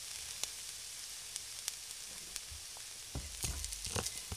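Beaten egg and oysters sizzling in hot oil in a nonstick frying pan as the egg is poured in: a steady hiss with scattered crackles and pops. A few soft low knocks come near the end.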